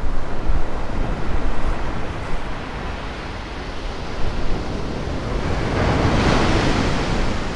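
Sea surf breaking on a sandy beach. A wave builds and washes in, loudest about six seconds in, with wind rumbling on the microphone underneath.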